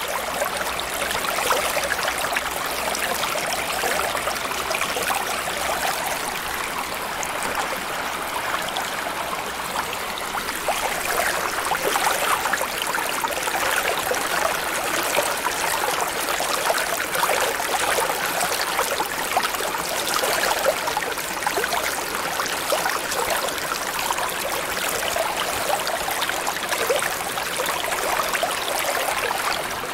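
Water ambience: steady flowing, bubbling water with a dense fine crackle, its energy in the middle and upper range rather than a deep rumble.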